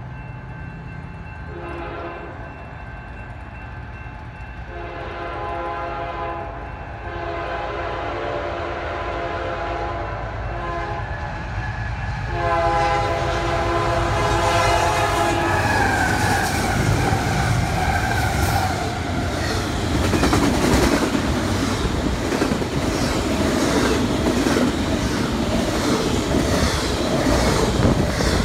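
Freight train's air horn sounding three long blasts as the train approaches, then the diesel locomotive and double-stack container cars passing close by, with rumbling and wheel clatter that grow loud. As the locomotive goes by there is a falling tone.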